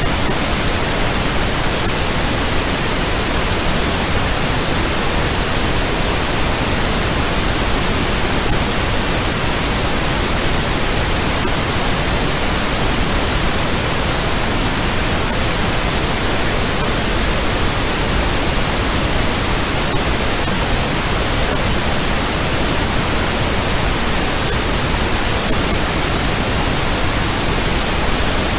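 Steady, unchanging hiss of noise like radio static, spread evenly from low rumble to high hiss with no events or changes: the sound track of a 'morphic field' audio video.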